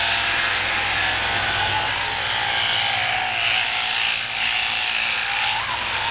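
Machine sheep-shearing handpiece running steadily as its comb and cutter clip through the fleece: a constant high-pitched hiss with a low hum beneath it.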